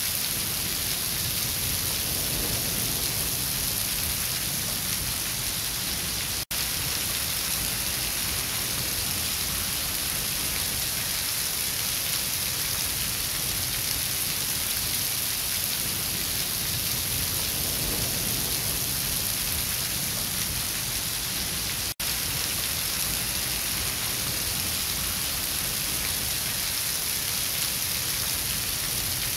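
Running water making a steady splashing hiss, cutting out for an instant twice, about a fifth of the way in and about three-quarters of the way through.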